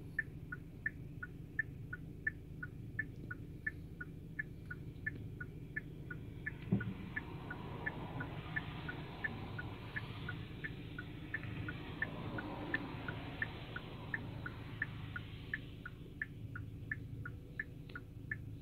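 Car turn-signal indicator clicking in a steady tick-tock, about three clicks a second alternating between two pitches, over the low hum of the car idling. A single knock comes about seven seconds in, and a broader rush of noise swells up through the middle stretch.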